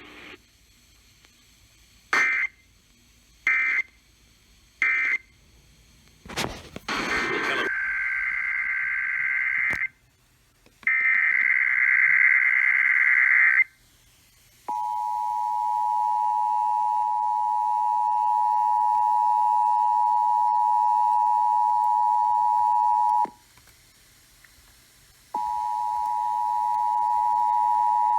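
Emergency Alert System broadcast signalling: three short digital data bursts, a brief noisy burst, then two longer warbling data bursts, followed about 15 s in by the steady two-tone EAS attention signal. The attention tone cuts off about 23 s in, and after two seconds of quiet the same two-tone signal starts again.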